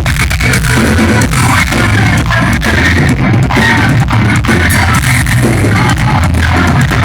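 Live progressive metal band playing loud: heavy distorted guitars and bass over fast, dense drumming, recorded from the crowd.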